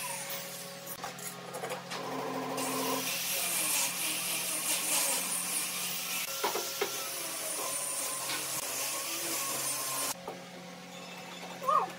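Bar clamps being set and screwed tight on a pine table frame: a short rasping of the clamp screw and hardware, then two sharp knocks of the clamp jaws against the wood, over a steady hiss that drops away suddenly near the end.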